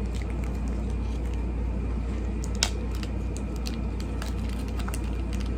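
Steady low background hum with one sharp click about two and a half seconds in and a few faint ticks, typical of small packaging parts being handled.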